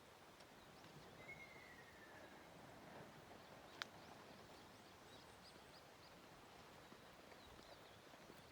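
Faint ruddy kingfisher giving one long falling call, about a second in, over a quiet background. A single sharp click comes near the middle, and a few faint high chirps follow.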